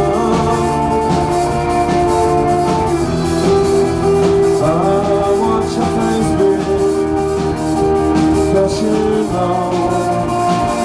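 Live rock band playing: guitars with sustained, sliding notes over a steady drum kit beat.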